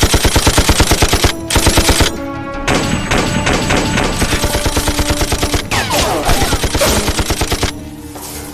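Machine gun firing in rapid bursts of about ten rounds a second. A burst of over a second and a short second burst are followed by a brief pause, then a long burst of several seconds that stops shortly before the end.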